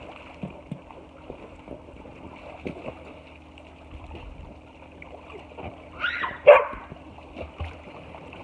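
A large black dog near the microphone gives a high yelp and then a sharp bark about six seconds in, with light splashing from the pool underneath.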